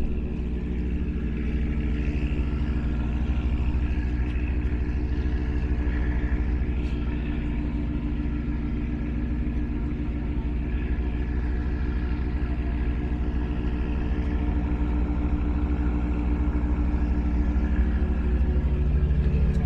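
Tugboat's diesel engine running steadily: a deep, even drone with a fast, regular pulse.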